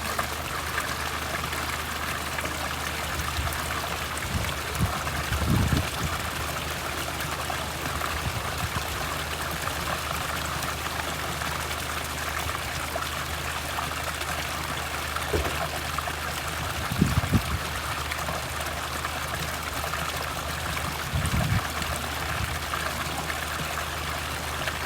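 Thermal spring water running and trickling steadily, with a few brief low rumbles.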